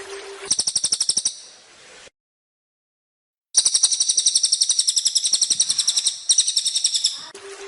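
Cililin bird calling in fast, high trills of evenly repeated notes. A short trill comes about half a second in, then a pause, then a longer trill of about three and a half seconds with a brief break near its end. Rushing waterfall noise with a steady low hum is heard at the very start and returns near the end.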